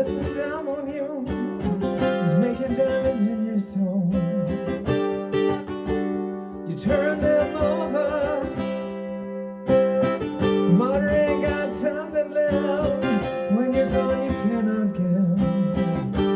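Ukulele strummed in steady chords, with a voice singing a melody, played through a Bose S1 Pro+ portable PA speaker. The singing drops out for a couple of seconds partway through, leaving the strumming alone, then comes back.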